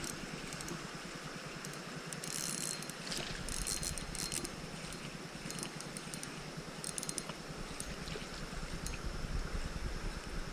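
Creek water running steadily, with scattered light metallic clicks and rattles from fishing gear being handled.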